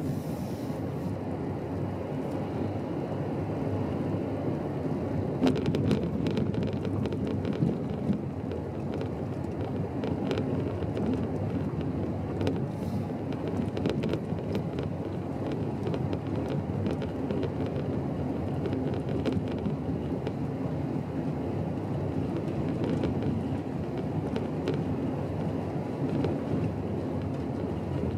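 Car driving slowly, heard from inside the cabin: a steady low rumble of engine and tyres, with scattered clicks and ticks as it runs along an unsealed gravel road.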